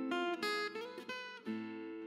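Background music: acoustic guitar playing a melody of plucked notes, some sliding between pitches.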